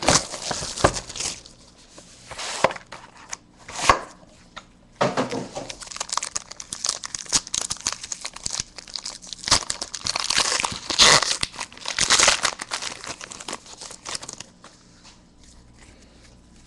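Packaging crinkling and tearing in irregular bursts as a sealed box of trading cards is unwrapped and opened. The crackling is busiest past the middle and dies away near the end.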